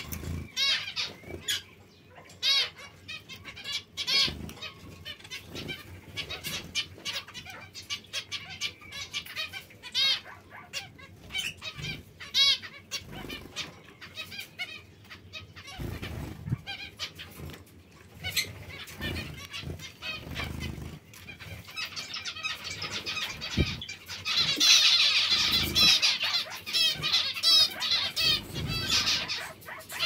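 Small caged finches chirping and calling: many short, high calls throughout, which thicken into a dense, louder chatter over the last six seconds or so. A few short low thumps fall among the calls.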